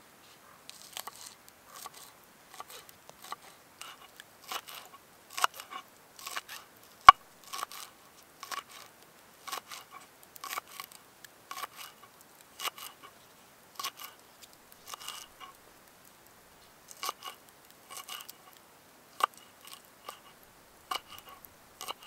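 Knife chopping a fresh green vegetable on a wooden cutting board: a steady run of short cuts, about two a second, each ending in a tap of the blade on the board. One cut lands as a much sharper knock about seven seconds in, and there is a brief pause just past the middle.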